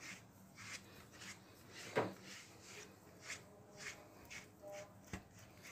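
Faint, scratchy swishes of a grooming brush drawn through a cat's damp fur, about two strokes a second. A sharp knock about two seconds in is the loudest sound, and a smaller one comes near the end.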